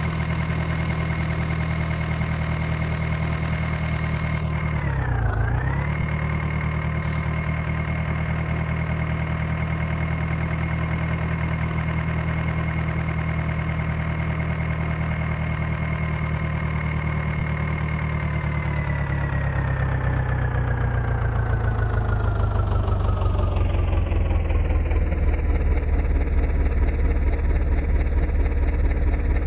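Diesel engine running steadily, dipping briefly in speed and recovering about five seconds in. Over the last third it slows gradually to a lower, slightly louder running note.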